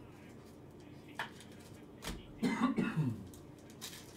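A person clears their throat with a short cough a little past halfway through, after a couple of light clicks from handling.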